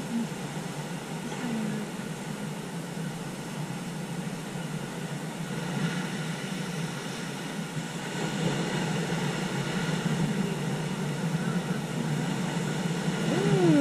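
Ocean surf breaking on shoreline rocks: a steady rush that grows a little louder from about six seconds in, with a short falling call near the end.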